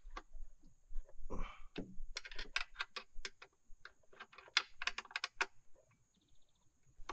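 Light, sharp metal clicks from a wrench working a bracket bolt loose in the engine bay. The clicks come scattered at first, then in quick runs of about six or seven a second.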